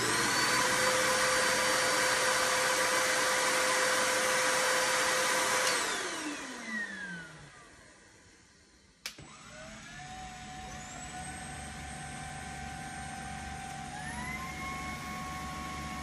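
A Bissell corded vacuum runs with a loud steady whine, then is switched off about six seconds in, its motor pitch falling as it spins down. A click follows, and the Easine G80 cordless stick vacuum's brushless motor starts with a rising whine, runs noticeably quieter, and steps up to a higher whine about fourteen seconds in as it is switched to max power.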